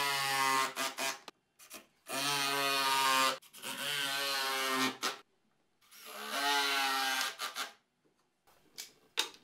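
Cordless drill driving screws into a plywood staircase: three runs of a steady motor whine, about two, three and two seconds long with short pauses between, then a few short clicks near the end.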